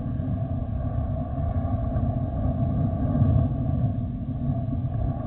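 Steady low rumble of an Airbus A330 freighter's jet engines as it rolls slowly along the runway.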